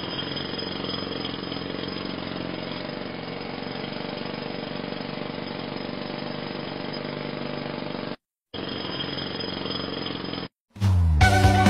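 A steady, rough rumbling noise that breaks off briefly about eight seconds in and stops about ten and a half seconds in. Upbeat music with a strong beat starts near the end.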